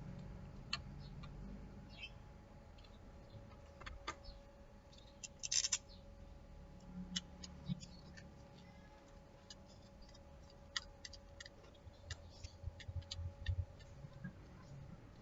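Scattered light clicks, ticks and scrapes of small plastic and metal electric fan parts being handled and fitted by hand, with a short cluster of sharper clicks about five and a half seconds in, over a faint steady hum.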